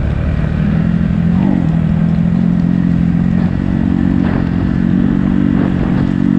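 Dirt bike engine running steadily at low revs on a slow trail ride, with a brief rise in revs about a second and a half in.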